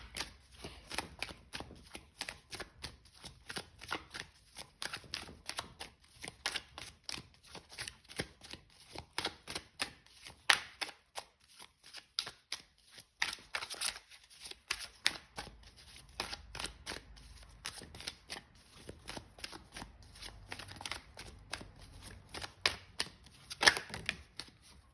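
A tarot deck being shuffled by hand to draw clarifier cards: a run of short papery clicks and flicks, a few each second, with a few louder snaps.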